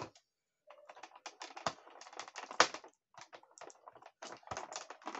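Hands handling plastic action-figure parts and their plastic packaging: a run of small clicks and rustles, with a sharper click about two and a half seconds in and a short pause near the middle.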